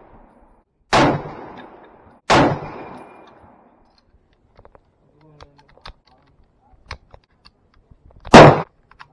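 M1 Garand rifle firing .30-06 M2 ball rounds: two sharp shots about a second and a half apart near the start, each trailing off in an echo, then light clicks and rattles, then a louder shot near the end.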